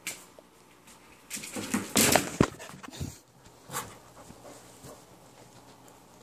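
A dog right up against the microphone, its face and fur rubbing on it, with a loud burst of rubbing and small clicks about two seconds in.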